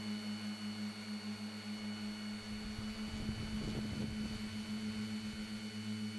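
Tricopter's three RCMC 2212 brushless motors spinning 10x5 props, a steady droning hum with a high whine above it. About three seconds in, a low rumble of buffeting joins for a second or so, then fades.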